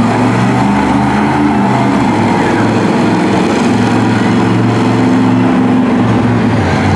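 Monster truck engine running loud, its pitch shifting up and down several times.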